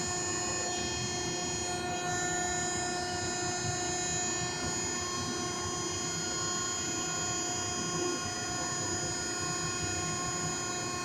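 Cardboard baler's electric hydraulic power unit running steadily: an even hum and whine from the motor and pump.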